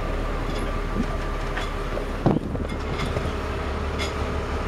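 Footsteps along a boat's side deck, faint knocks about once a second over a steady low rumble, with one louder thump a little over two seconds in.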